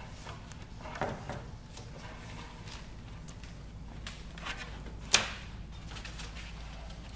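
Handling noises from a large Depron foam sheet being held and fitted onto a wing: soft scrapes and taps, with one sharp knock about five seconds in, over a steady low hum.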